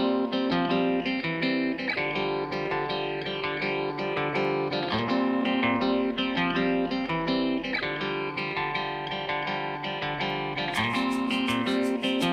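Background music: plucked guitar playing a steady melody with quick note onsets.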